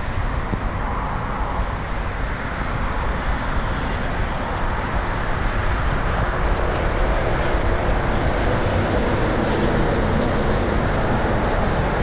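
Road traffic noise: a steady rush of passing vehicles that grows somewhat louder in the second half.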